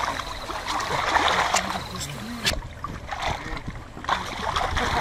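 River water splashing and lapping close to the camera, loudest in the first half, over a low steady hum. A few sharp clicks are scattered through it.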